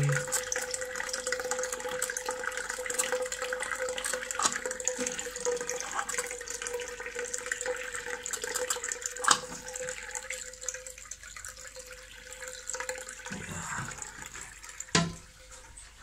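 Ideal Standard toilet cistern refilling through its inlet float valve, fitted with a new diaphragm: a steady hiss of incoming water with a steady tone in it that fades after about thirteen seconds. Two sharp knocks, about nine and fifteen seconds in.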